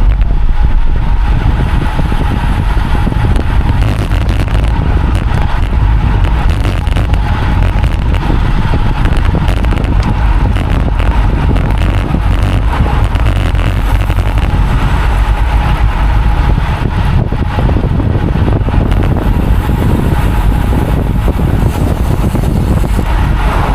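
Steady wind buffeting on the microphone of a road cyclist riding at speed.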